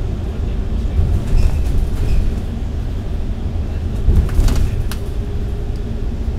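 Cabin noise of a MAN A95 double-decker bus cruising on an expressway: a steady low rumble of engine and tyres, with a brief clatter of knocks about four seconds in.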